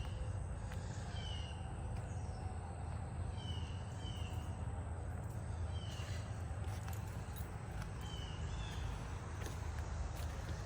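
A bird calling in short falling chirps, repeated every second or two, over a steady low rumble.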